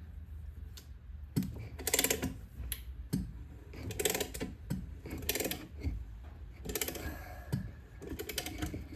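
Quick runs of sharp metallic clicks, one cluster about every second and a half, as the engine case splitter's screw is wound in to press the crankshaft out of the case half.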